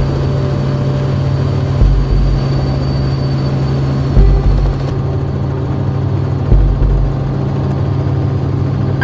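Steady drone of a news helicopter's engine and rotor heard from the cabin, with a deep thump about every two and a half seconds.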